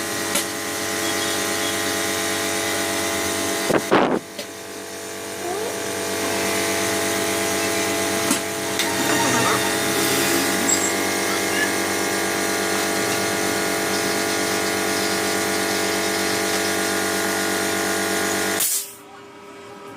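A small electric motor running steadily with an even whine and hiss, a couple of brief knocks about four seconds in, then switched off suddenly near the end.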